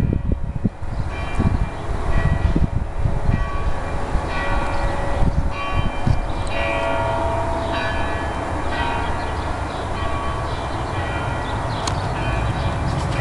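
Church bells pealing, a stroke about every half second to a second at several different pitches, each ringing on. A steady low rumble underneath.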